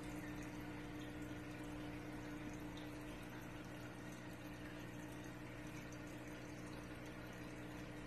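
Aquarium pump running: a steady, faint low hum under a constant trickle and bubbling of water.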